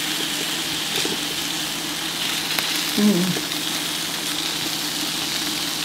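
Salmon fillets sizzling steadily on a hot grill plate set over a hot pot, with tongs moving them about.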